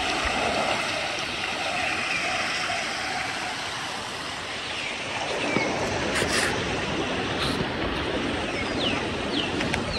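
Shallow river running over rocks: a steady rushing of water, with a few short falling bird calls over it.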